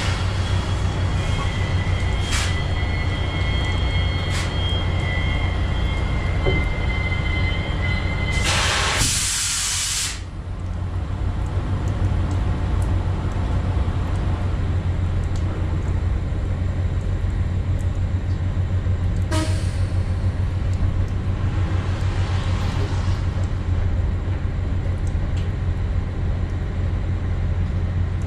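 Semi truck's diesel engine idling with a steady low rumble, a faint high whine over it at first. About eight seconds in comes a loud hiss of released air lasting about a second and a half, the air brakes being set.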